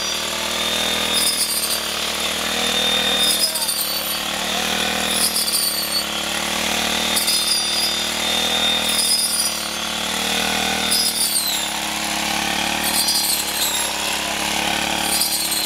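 A four-stroke mini rice cutter, a brush-cutter-type reaper, running steadily under load. Its spinning blade slices through ripe paddy stalks in a sweep about every two seconds, and the sound swells with each cut.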